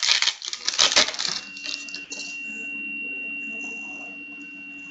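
Foil trading-card pack wrapper being torn open and crinkled, loudest in the first second. Then quieter rustling of cards being handled over a faint steady high-pitched tone.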